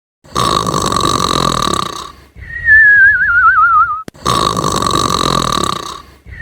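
Cartoon snoring: a rasping snore on the in-breath, then a falling, wavering whistle on the out-breath, repeated twice in the same way. The second whistle starts near the end.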